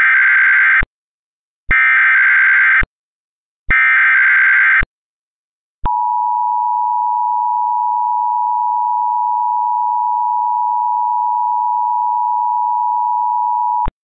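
Emergency Alert System header: three bursts of SAME digital data tones, each about a second long with a second's gap, then the two-tone EAS attention signal (853 and 960 Hz) sounding steadily for about eight seconds before cutting off.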